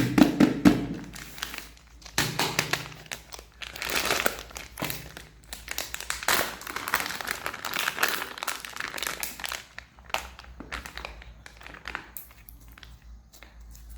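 Plastic crinkling and rustling as it is handled, with scattered sharp taps and clicks; it fades off in the later part.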